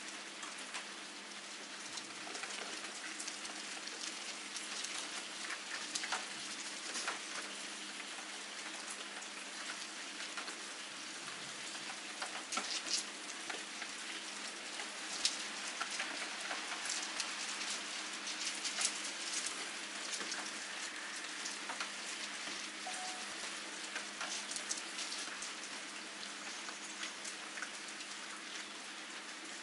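Steady rain falling, with many separate drops clicking sharply on hard surfaces close by, over a faint steady low hum.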